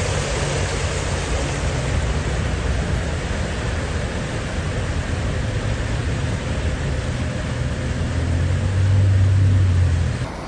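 Heavy rain falling steadily, with a vehicle's low engine rumble underneath that grows louder near the end.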